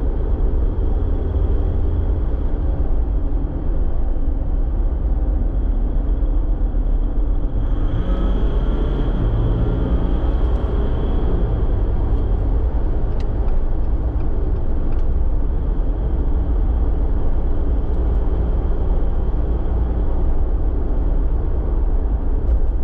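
Jeep Wrangler JL driving, heard from inside the cabin: a steady low rumble of engine and road noise, with a faint steady high whine above it.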